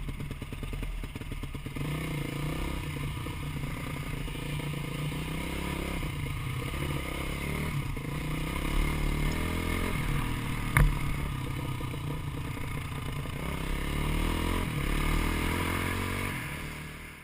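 Dirt bike engine running, its pitch rising and falling with the throttle, with a single sharp knock about two-thirds of the way through.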